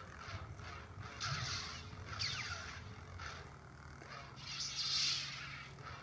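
Black Series Obi-Wan Kenobi (Episode III) toy lightsaber's sound effects: a steady hum with a series of swing whooshes as the blade is moved, the loudest about five seconds in.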